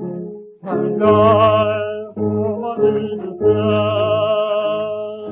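A 1932 Pathé 78 rpm record of a Chinese patriotic song: a singer with ensemble accompaniment, holding long notes with vibrato. There is a brief break in the sound about half a second in.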